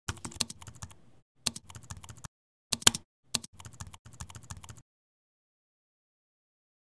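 Typing sound: rapid key clicks in several short runs with brief pauses, stopping just under five seconds in.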